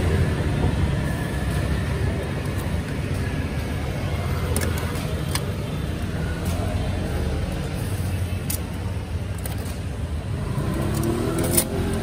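Steady rumble of road traffic with faint voices in the background. A few sharp clicks sound now and then, the loudest near the end.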